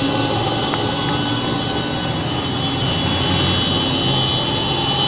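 Intercity bus running close by, engine and road noise with a steady high-pitched whine that grows stronger about halfway through.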